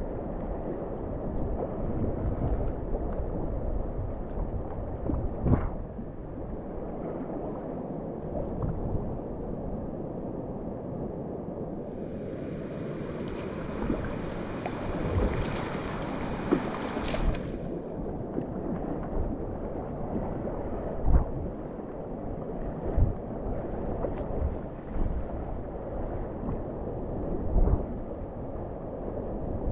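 River water rushing and lapping around a kayak running downstream, with wind buffeting the microphone and a few low thumps from the paddle. A brighter hiss comes in for about five seconds midway.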